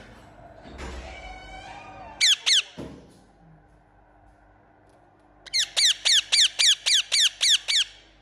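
Indian ringneck parakeet calling: two sharp, loud high-pitched calls a little after two seconds in, then after a pause a rapid run of about ten calls, roughly four a second, each falling in pitch.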